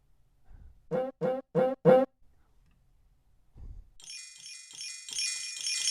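General MIDI drum sounds from Apple's MIDI synthesizer, each triggered by a tap on a contact microphone. About a second in come four quick pitched hits. After a soft low thump near the end, a run of bright, ringing bell-like strikes starts, about four a second.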